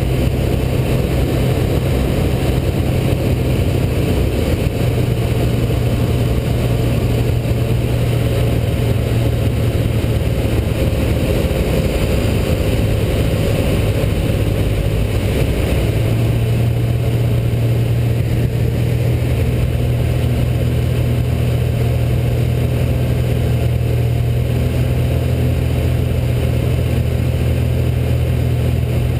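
Rotax 912 flat-four aircraft engine, fed by an AeroInjector, running steadily in flight together with its propeller, heard from inside the cockpit. The engine note shifts slightly about halfway through.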